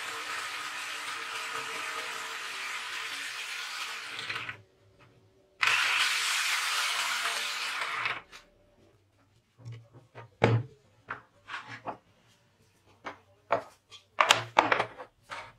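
Electric jigsaw cutting through plywood, the motor and reciprocating blade running steadily for about four and a half seconds, stopping for a second, then running again, louder, for about two and a half seconds. After it stops, a series of sharp wooden knocks and clatters as the cut plywood pieces are handled.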